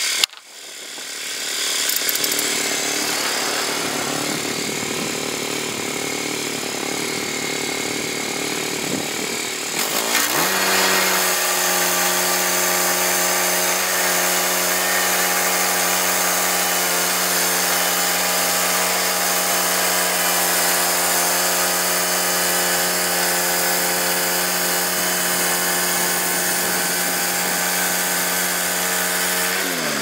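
Gas engine of a Woodland Mills HM122 bandsaw mill running. About ten seconds in it revs up and holds a steady high pitch under load as the band blade saws through a log. The pitch drops away at the end as it throttles back.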